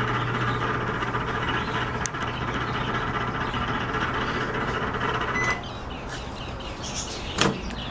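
Microwave oven running with a steady hum and a loud, ugly mechanical noise, which the owner takes to come from the turntable motor. It stops about five and a half seconds in with a short beep, followed by a single knock near the end.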